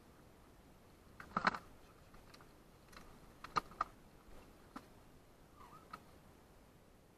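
A few light clicks and knocks of fishing gear being handled in an inflatable boat. The loudest is a quick double knock about a second and a half in, followed by scattered smaller clicks.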